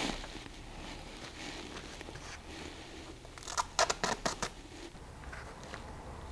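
Sheets of stencil paper being handled: soft paper rustling, and about three and a half seconds in a quick run of sharp crackling clicks lasting about a second.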